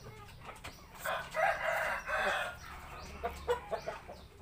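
A rooster crows once, starting about a second in and lasting just over a second, followed by a few short clucks near the end.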